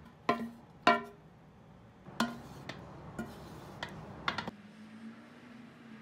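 Quiet background music: a handful of single plucked-string notes, each ringing briefly before the next.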